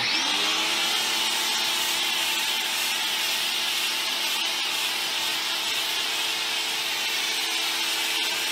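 Greenworks 1700 PSI electric pressure washer starting up the moment the trigger is pulled and running steadily, its motor humming under the loud hiss of the spray as it lays soap from the soap dispenser bottle on the wand onto a car's side.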